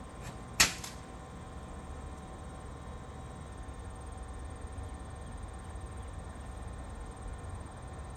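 A lacrosse shot at a goal: one sharp smack of the ball about half a second in, with a brief rattle after it. Then only a steady low rumble.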